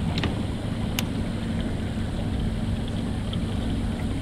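Boat motor running with a steady low hum, and one sharp click about a second in.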